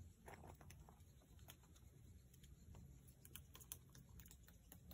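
Near silence with faint, irregular clicks and ticks scattered throughout over a low rumble.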